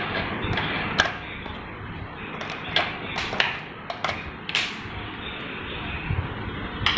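Grey plastic mixing-bowl parts of a premix coffee vending machine clicking and knocking as they are handled and pulled off by hand: about ten sharp clicks, bunched in the middle, over a steady background hiss.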